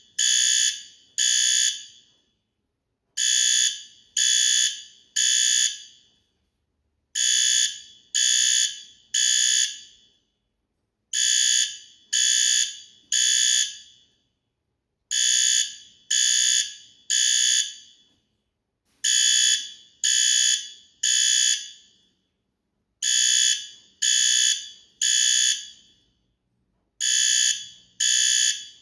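Fire alarm sounding the temporal-three evacuation pattern: three high-pitched beeps about half a second apart, then a longer pause, repeating every four seconds.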